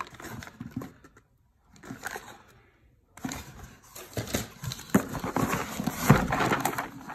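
Hands handling ammunition boxes in a cardboard shipping box: cardboard rustling and scraping with scattered knocks as boxes are moved. It drops to near silence for about two seconds near the start, then the handling gets busier, with the loudest knocks in the second half.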